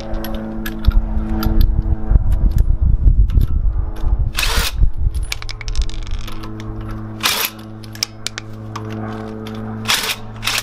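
Cordless impact driver hammering on a car's wheel lug nuts: a rapid rattling run over the first few seconds, then a few short, loud bursts as the nuts are spun off. Background music with held tones plays throughout.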